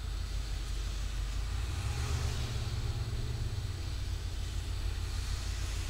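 A Ford 351 Windsor V8 heard from inside the van's cabin through a Flowmaster Delta Flow 50 series muffler, a steady low exhaust rumble. Engine speed rises briefly from about two seconds in and settles back before four seconds.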